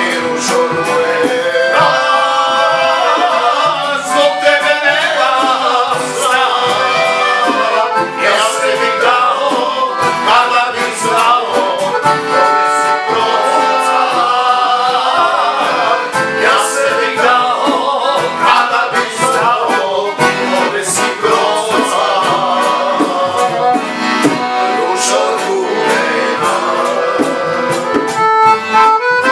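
Folk band music led by an accordion.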